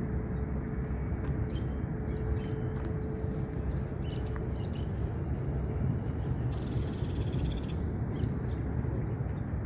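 Birds calling in short, harsh, repeated calls, with a longer buzzy call in the second half, over a steady low rumble.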